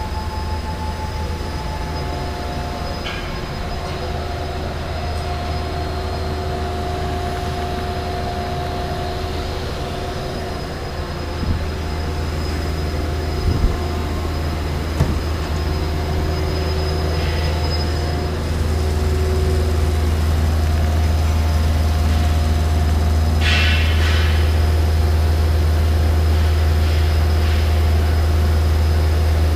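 Steady low hum and whine of running industrial machinery, with a few sharp clicks near the middle as a steel control-cabinet door is swung shut. The hum grows louder about two-thirds of the way through, and a brief hiss comes a little later.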